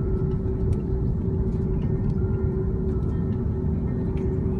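Cabin noise inside an Airbus A330-300 taxiing after landing: a steady low rumble with a steady hum running through it.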